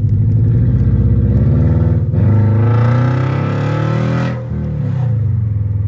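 The 2008 Subaru Legacy 2.5i's flat-four with a straight-piped exhaust is revved once. The pitch climbs for about four seconds, then drops back to idle.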